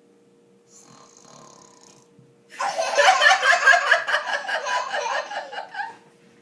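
A small child making a pretend snore: a faint breath, then a loud, raspy vocal sound in rapid pulses lasting about three and a half seconds.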